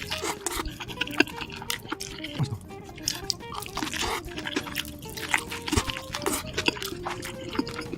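Close-miked eating: dense crisp crunches and wet mouth smacks from chewing fried chicken with thick cheese sauce, over soft background music with a simple stepping melody.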